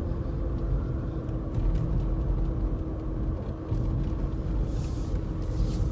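A 1992 Mercedes-Benz 300E (W124) being driven: a steady low rumble of engine and road noise with a steady hum, and a brief rush of hissing noise near the end.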